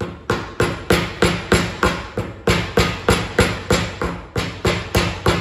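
Rubber mallet tapping a spring clip down over a brake hose end fitting on its frame mount, about three even blows a second.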